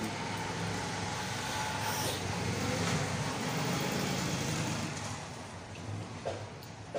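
A passing motor vehicle: engine and road noise swelling, then fading after about five seconds.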